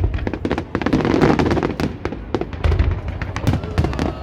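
Fireworks going off in a rapid run of bangs and sharp cracks, with a loud bang at the start and a dense stretch of crackling about a second in.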